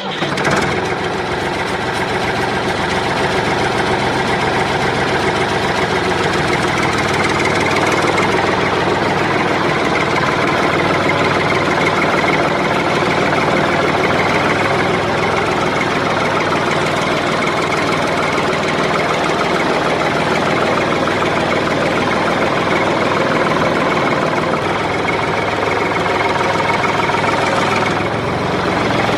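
An engine running steadily at an even speed, starting abruptly and holding constant.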